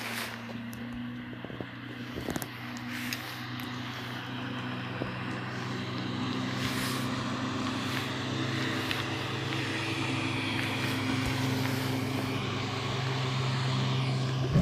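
Boat motor running with a steady low hum under the rush of water and wind, the whole sound growing gradually louder.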